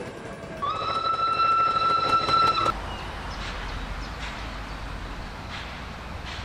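Steam locomotive 97 501's whistle: one long, steady blast of about two seconds, starting just under a second in and cut off sharply. After it a quieter low, steady rumble with a few faint knocks.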